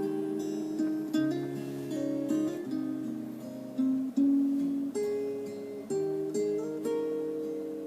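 Acoustic guitar playing a slow picked passage without vocals, each note ringing and decaying, the instrumental ending of a song recording. It begins to fade out near the end.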